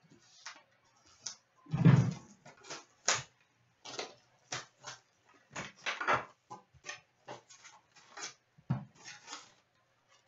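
A box of hockey trading cards and its packs being opened and handled by hand: irregular crinkles, rustles and taps of cardboard and wrapper, with a louder thump about two seconds in.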